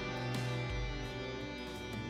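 Instrumental background music led by a plucked string instrument, with new notes coming in every half second or so.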